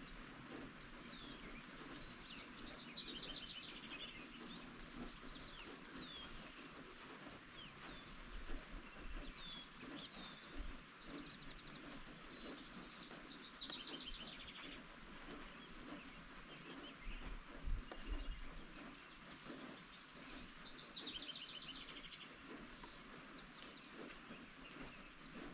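Steady rain falling, with a songbird repeating a fast trill that falls in pitch about every nine seconds, three times, and short chirps between. A few dull low thumps stand out, the loudest about two thirds of the way in.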